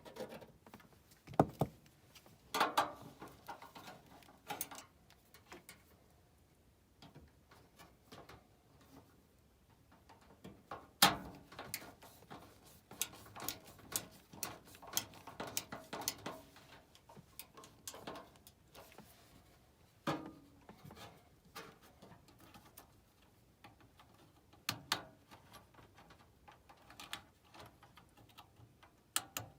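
Scattered clicks, taps and knocks of hand work on a gas furnace's blower section: a new 10 µF run capacitor being fitted and its wires handled. The two loudest sharp clicks come about a second and a half in and about eleven seconds in, with softer handling noise and quiet stretches between.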